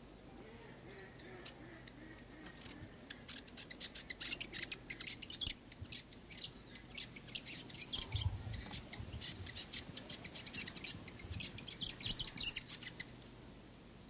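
Fantail giving a rapid run of sharp, high chirps that starts about three seconds in and goes on until near the end. A brief low thump about eight seconds in.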